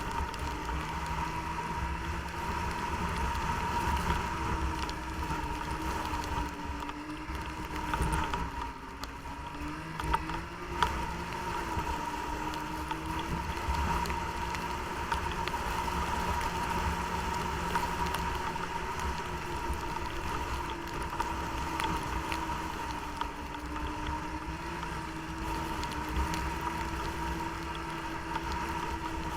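Snowmobile engine running steadily under way, its pitch wavering slightly with the throttle over a steady high whine and low rumble, with wind noise. It eases off briefly about eight seconds in, and two sharp knocks follow soon after.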